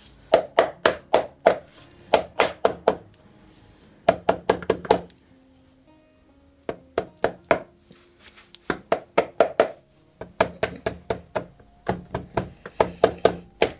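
Soft-blow hammer tapping a stuck motorcycle cover in repeated quick bursts of about five or six blows, with short pauses between bursts. The part is seized by corrosion and being knocked loose.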